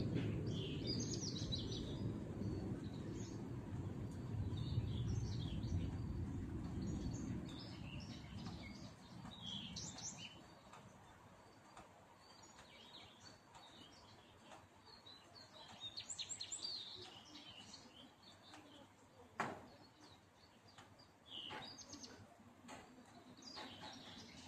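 Small birds chirping and calling on and off, in short high notes. A low rumble underneath fades away over the first eight seconds or so, and there is a single sharp click about nineteen seconds in.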